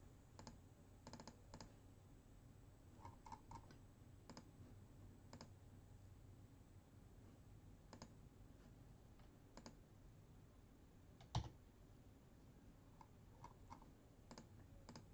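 Near silence: quiet room tone with faint, scattered clicks in small groups, and one sharper click about eleven seconds in.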